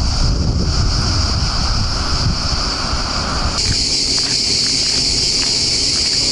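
Wind buffeting the microphone. About three and a half seconds in, a loud, steady, high-pitched drone of cicadas comes in and continues with lighter wind.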